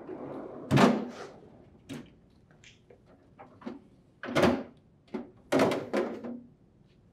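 LG refrigerator freezer drawer sliding open on its rails, ending in a loud knock at its stop about a second in. Then plastic knocks and clatter twice around four to six seconds in as the upper freezer tray is pulled out and the plastic ice container is lifted free.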